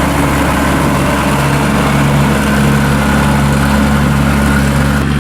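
Tracked rice combine harvester running steadily as it drives through a wet paddy, a low steady engine hum with a broad hiss over it.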